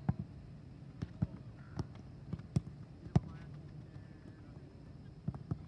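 Soccer balls being kicked and trapped in a passing drill: about ten sharp, irregular thuds, the loudest about three seconds in.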